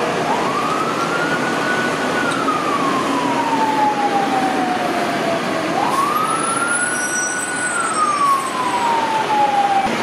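Fire truck siren wailing over steady street noise. Twice it rises quickly to a high pitch, holds briefly, then slides slowly down; the second rise comes about halfway through.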